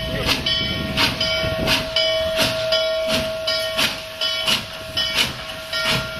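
Norfolk & Western Class J 611 steam locomotive passing slowly, hissing steam, with a bell ringing in a steady beat about twice a second.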